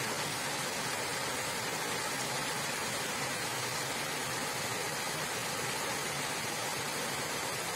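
Waterfall: water rushing steadily over rocks, an even unbroken rush.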